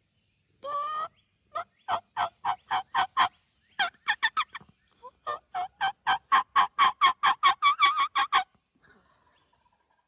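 Turkey yelping: a short call about a second in, then runs of loud, evenly spaced yelps with short gaps between them, the last run longer and quicker, stopping near the end.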